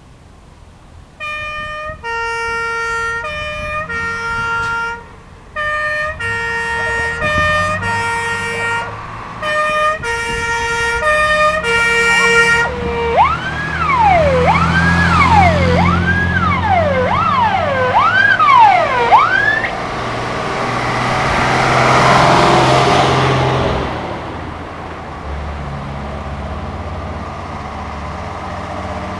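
Steyr fire engine's siren sounding a two-tone hi-lo call in short alternating bursts, then switching to a wail that rises and falls about once a second. After that comes the truck's engine and tyre noise swelling as it drives past, then fading to a lower engine sound.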